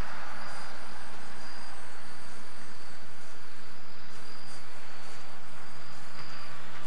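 Crickets trilling, a thin high chirring that comes and goes in stretches, over a steady hiss.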